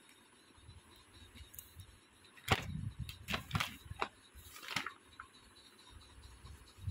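A quick run of short rustles and clicks from about two and a half seconds in, lasting about two seconds, over faint background noise; typical of a notebook page and a hand-held phone being handled.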